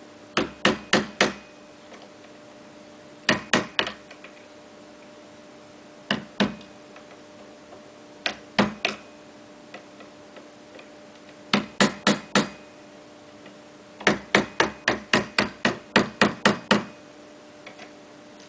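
Hammer blows in quick bursts of two to nine strikes, about three a second, with short pauses between bursts.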